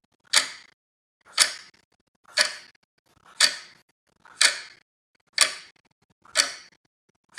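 Clock ticking, one sharp tick about every second.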